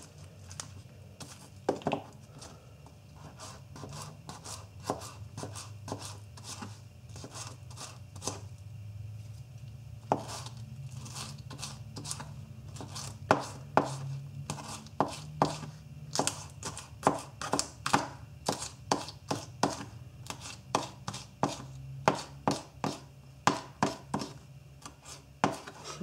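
Spyderco Native 5 folding knife slicing spring onions on a cutting board: a run of sharp taps as the blade goes through and hits the board, spaced out at first, then coming quicker and louder from about halfway on. A faint low hum lies underneath.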